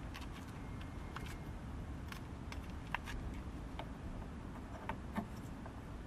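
Scattered light clicks and taps of plastic parts being handled and fitted at a car's gear lever, over a steady low background rumble.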